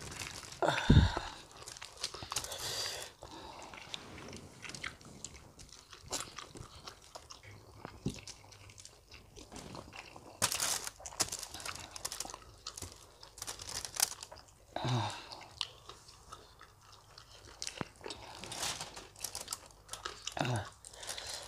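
Close-miked eating: crunching and chewing of saucy fried chicken, with irregular crackles and soft tearing as gloved hands pull the meat apart. A few short low vocal sounds falling in pitch break in now and then.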